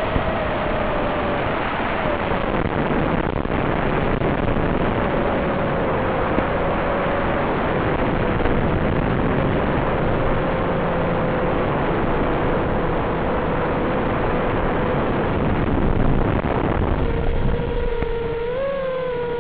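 FPV quadcopter motors and propellers whining at a steady pitch under heavy hiss. Near the end the hiss drops away and the whine comes through clearly, bending up and down in pitch as the throttle changes.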